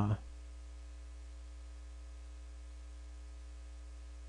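Steady low electrical mains hum with faint hiss, picked up in the recording chain under the narration.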